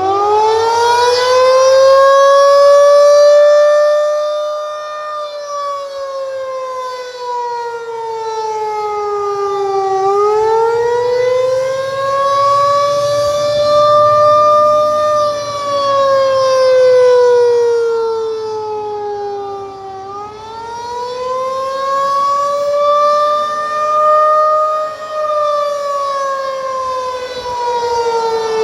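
Federal Signal 2001-DC electromechanical tornado siren winding up, then sounding the attack signal: one loud tone that slowly falls and rises again in a wail, about every ten seconds.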